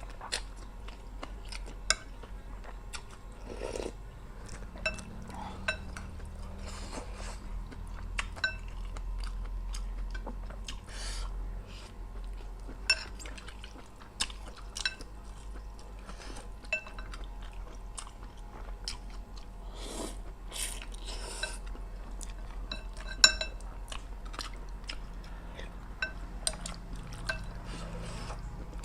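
Close-up eating sounds of a noodle soup meal: chewing, with utensils clicking and clinking against the bowl at irregular moments, some clinks ringing briefly. One clink about three-quarters of the way through is the loudest.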